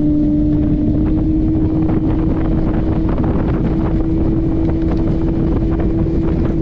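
Bass boat's outboard motor running at speed, a steady drone whose pitch creeps slightly upward, with wind buffeting the microphone.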